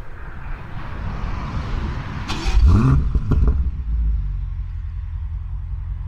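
Twin-turbo V8 of a high-performance sedan starting up. About two and a half seconds in it fires with a loud rising rev flare, then settles to a steady low idle.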